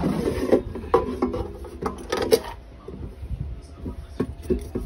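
Air fryer basket and its perforated metal frying rack being handled: a run of knocks and rattles of metal against plastic in the first half, then a few lighter clicks.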